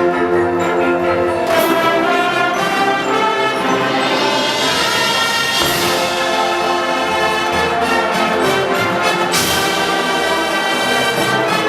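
Brass music holding long, loud chords, with a bright crash that rings out about every four seconds.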